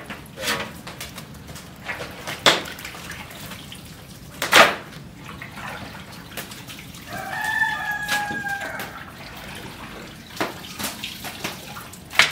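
A rooster crows once, a long, slightly falling call, about seven seconds in. Around it come sharp wet knocks and slaps of raw meat pieces being handled and dropped into large metal pots, the loudest about halfway through.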